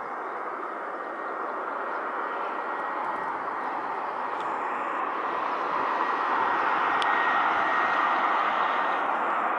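An Airbus A320-214 on final approach with its landing gear down. The steady jet noise of its CFM56 turbofans slowly grows louder as it comes closer, with a thin high whine over it.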